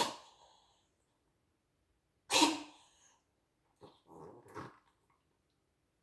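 An animal sneezing forcefully while eating. Two sharp, loud sneezes come about two seconds apart, then a weaker, quicker pair of snorting sneezes about four seconds in.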